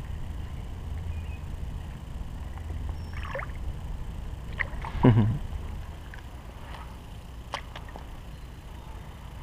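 Water sloshing against a hand as a fish is held in the water from a kayak for release, with a splash about five seconds in. A few light clicks follow near the end.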